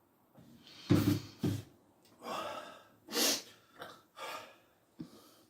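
A man gasping and breathing hard through the mouth, about six sharp breaths in and out, from the burning heat of a red ghost pepper he has just eaten.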